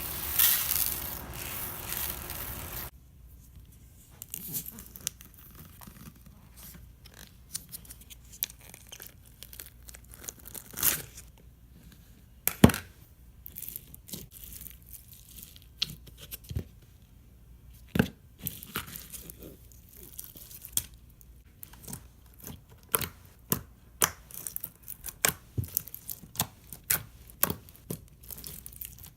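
Clear slime with slushy beads mixed in being handled: a rustling hiss for the first few seconds, then scattered crackles and pops as the beaded slime is squeezed and stretched, coming thicker near the end.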